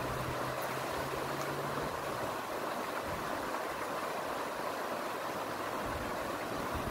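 Steady rush of a shallow creek riffle, water running over rocks as an even, unbroken noise. A faint low hum sits under it for about the first two seconds.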